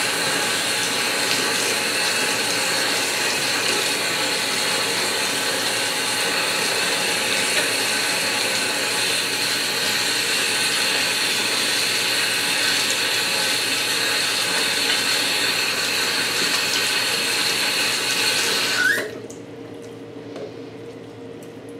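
Bathroom sink tap running steadily into the basin: a loud even hiss with a thin high whine in it. The water cuts off suddenly about nineteen seconds in, leaving only faint rubbing sounds.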